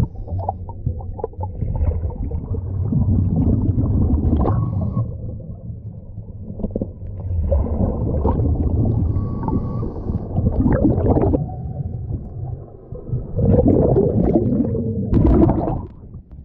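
Air bubbling and gurgling underwater, heard through a submerged camera, as scuba air from a cracked-open valve is let into a lift bag. It comes in surges a few seconds apart over a low rumble.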